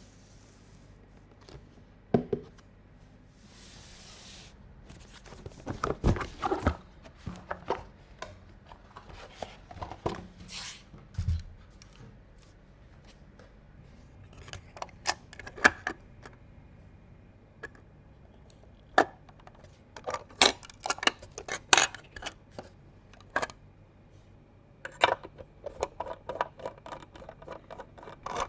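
Hands handling PC parts and packaging: scattered clicks, taps and knocks of plastic and metal, with short rustles, one longer rustle or tearing about four seconds in.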